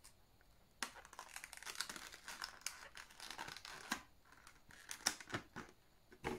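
Thin clear plastic film crinkling and tearing as it is peeled off a RAM module, in a dense run of small crackles from about a second in, thinning to scattered clicks, with a sharper click near the end.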